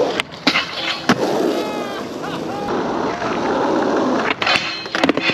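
Skateboard wheels rolling on concrete with a rough rumble, broken by sharp clacks of the board hitting the ground: pops and landings early on, and a quick cluster near the end.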